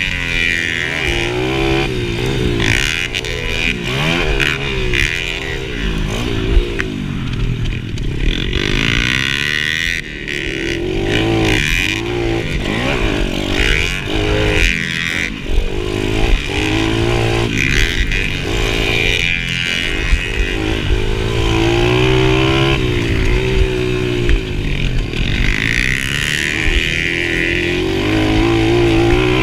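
Mini dirt bike engine racing, picked up close from the handlebars: its pitch climbs and falls again and again as the throttle is opened and shut and the gears change.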